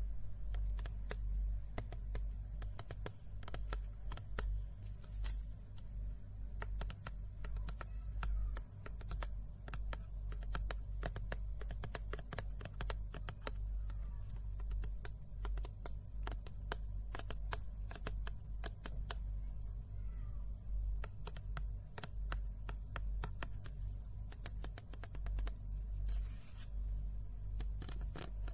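Fingernails tapping quickly on a labelled bottle, close to the microphone: a dense, irregular run of light clicks, like typing.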